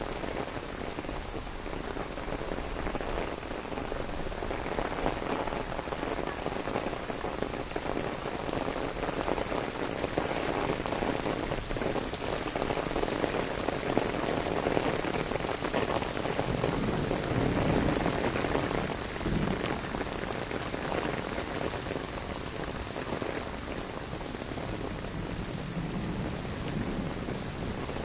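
Heavy rain pouring onto wet stone paving and onto an umbrella held overhead. It makes a steady dense hiss with countless close drops ticking on the umbrella.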